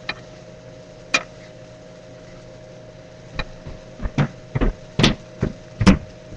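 A run of sharp knocks and clicks over a steady hum: two single knocks, then a quicker cluster in the second half, the loudest near the end.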